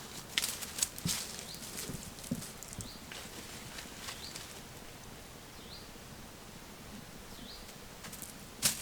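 Quiet outdoor ambience with scattered light clicks and taps and a few short, faint, high rising chirps.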